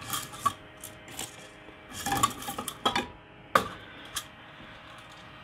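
Filament spool being handled and taken off a 3D printer's spool holder: a string of short clicks, knocks and rattles, with the sharpest knock about three and a half seconds in.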